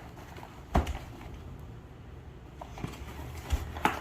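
A dog working at a taped cardboard box with his paws and mouth: a sharp knock a little under a second in, a dull thump later, and a few light taps near the end.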